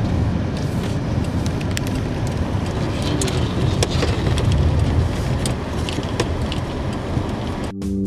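Off-road 4x4 driving over a rough dirt and gravel track: steady engine and tyre rumble with scattered knocks and rattles from stones and the body. Guitar music takes over near the end.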